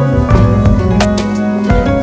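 Background music: sustained instrumental notes over a beat with sharp drum hits.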